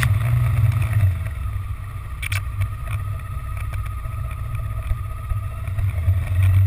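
Honda XR650L's single-cylinder engine running steadily at cruising speed: a low drone that swells a little near the end.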